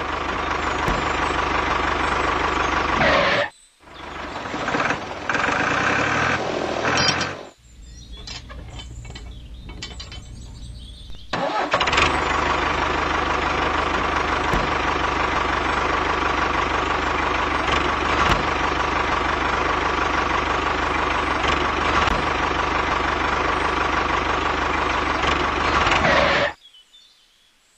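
A motor running steadily with a whine. It cuts out briefly a few seconds in, runs again, drops lower for a few seconds, then runs steadily again until it stops shortly before the end.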